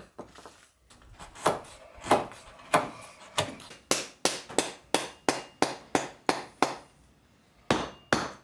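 Repeated hammer blows on wood, driving the wooden handle into the forged axe head to haft it. The blows come about every half second at first, quicken to about three a second, stop briefly, then two more land near the end.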